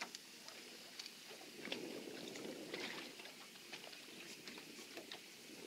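Faint lapping of water against a boat's hull, with scattered light irregular clicks as a baitcasting reel is wound in under load from a hooked fish.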